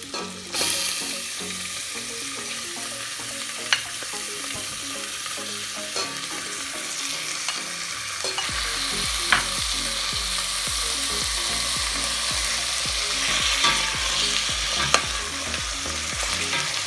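Chicken pieces sizzling in hot oil in a pot, the sizzle jumping up loud about half a second in as the chicken goes in. A spatula stirs, with occasional sharp clicks against the pot.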